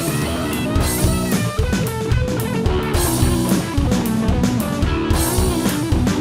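Instrumental hard rock passage: guitar over a steady drum kit beat, with no vocals.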